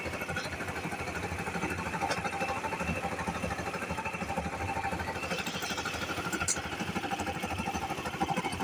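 Air compressor running steadily, its motor and pump making a fast, even pulsing mechanical sound.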